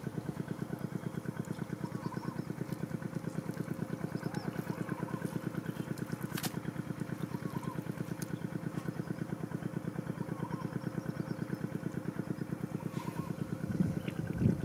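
A small engine idling steadily nearby, with an even, fast pulsing beat.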